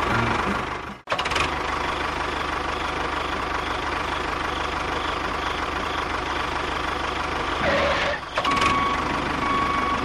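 Small engine running steadily with a fast, even pulse, broken by a sudden brief dropout about a second in.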